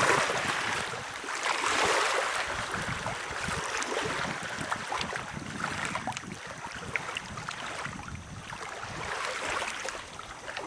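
Small waves lapping on a lakeshore beach, swelling and easing every couple of seconds, with light wind on the microphone.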